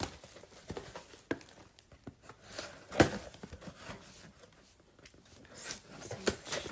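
Packaging being handled and torn open: irregular crinkling and rustling with scattered sharp clicks and knocks, the loudest knock about three seconds in.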